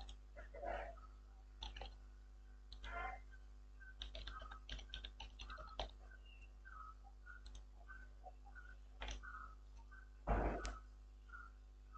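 Faint computer keyboard typing and mouse clicks in scattered runs, busiest a few seconds in, with one louder thump about ten seconds in.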